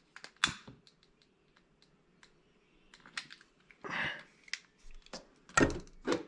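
Small clicks and knocks of hands handling a glass liquid candle lamp on a workbench as it is lit, with a short hiss about four seconds in and a louder bump near the end.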